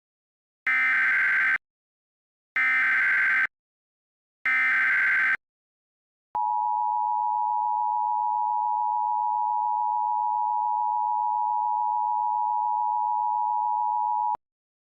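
Emergency Alert System signal announcing a Civil Danger Warning: three short bursts of buzzing digital header tones, about a second apart. Then the two-tone EAS attention signal sounds as one steady tone for about eight seconds and cuts off sharply.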